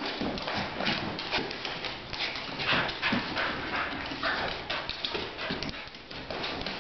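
Excited dog moving about frantically: quick, irregular tapping and scuffling that keeps up throughout.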